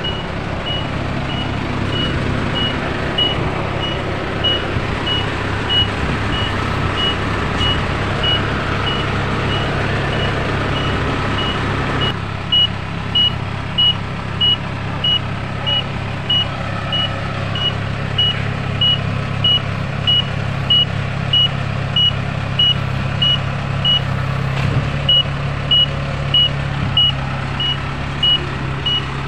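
Kubota DC-70 combine harvester's diesel engine running steadily while its travel alarm beeps, a short high beep about three times every two seconds, with one brief break near the end. The engine noise eases about halfway through as the machine moves off through the mud.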